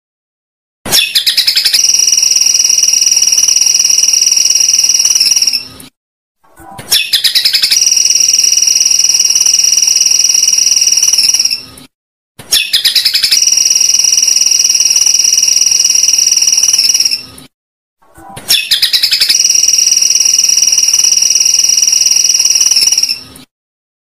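Masteran bird-training recording: a loud, high buzzing trill repeated four times, each lasting about five seconds with short gaps between. Each trill opens with fast ticking, then holds steady.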